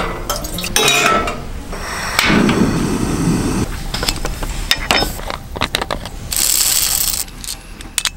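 Metal hand coffee grinder and a glass bottle of coffee beans handled on a wooden table: a run of clicks and clinks, with a short rushing noise about two seconds in and a brief hiss near the end.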